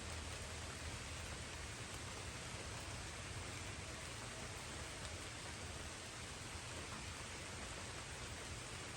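Light rain falling: a soft, steady hiss.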